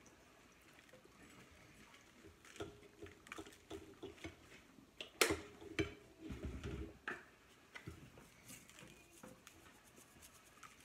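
Scattered light clicks and taps of a knife and fork on a plate as food is cut, with a sharper knock about five seconds in.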